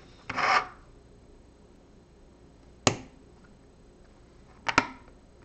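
Plastic LEGO pieces being handled and pressed together. There is a brief rustle of pieces near the start, then a single sharp click about three seconds in and a quick double click near the end.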